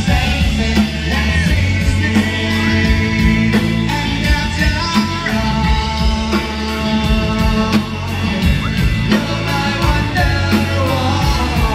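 Live rock band playing, a singer over a steady drumbeat.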